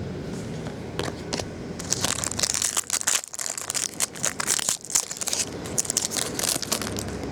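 Trading-card pack wrapper crinkling and tearing as a pack is opened, a few light rustles first, then a dense run of crackles from about two seconds in.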